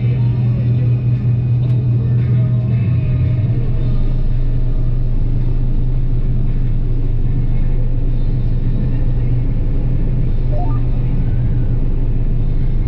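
John Deere 9770 combine running steadily while harvesting soybeans: a loud, even drone of the diesel engine and threshing machinery. About three seconds in, the tone shifts and a deeper hum joins it.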